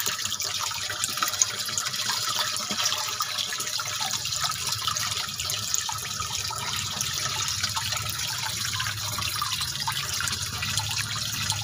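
Water trickling steadily into a fish pond, with small drips and splashes.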